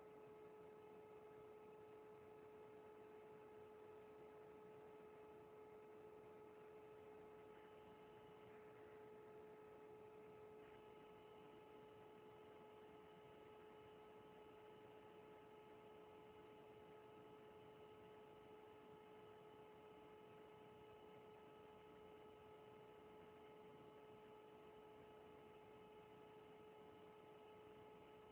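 Near silence with a faint steady electrical hum: a constant whine with a few overtones.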